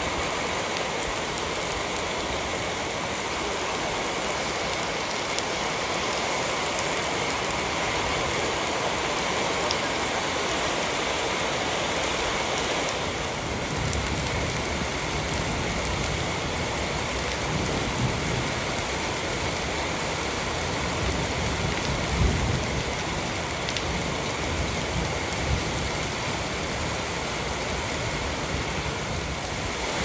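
Steady rain falling: a dense, even hiss. About halfway through a low rumble joins it.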